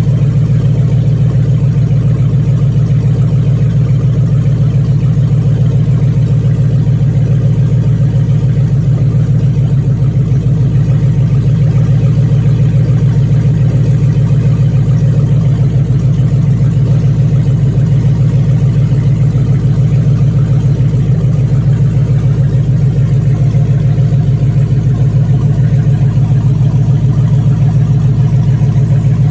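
Chrysler 6.1 Hemi V8 on an engine run stand idling steadily at about 800 rpm, running on a new Hotwire wiring harness.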